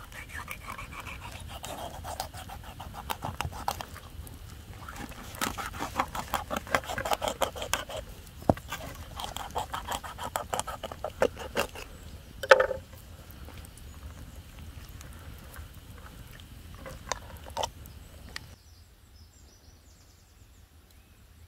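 A knife scraping and cutting along the bony back of a raw Caspian sturgeon on a wooden board, in runs of quick clicks and scrapes. One louder short sound stands out a little past halfway, and it goes much quieter near the end.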